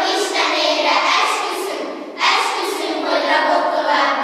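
A group of children's voices reciting together in unison, in two long phrases, the second starting abruptly about two seconds in, echoing in a large hall.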